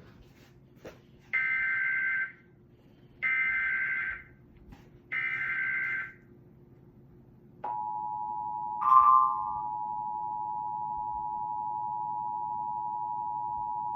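Emergency Alert System header and attention signal. Three short buzzing SAME data bursts of about a second each, then, about seven and a half seconds in, the steady two-tone EAS attention tone starts and holds. A brief louder chirp cuts in over the tone about a second after it starts.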